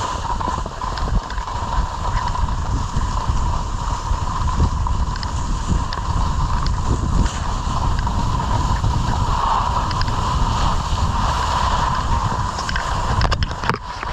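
Wind rushing over the microphone while skiing downhill, over a steady hiss of skis sliding on packed snow. A few brief knocks near the end.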